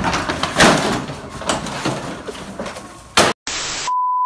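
Knocks and clatter of someone moving roughly about. About three seconds in, a short burst of static hiss gives way to a steady, high test-card beep.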